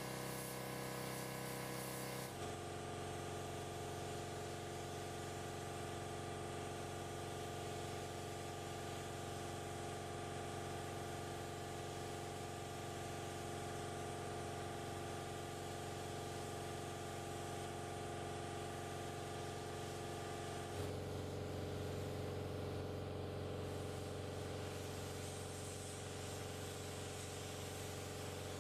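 A steady motor hum with a faint hiss behind it, its tone shifting abruptly about two seconds in and again about twenty seconds in.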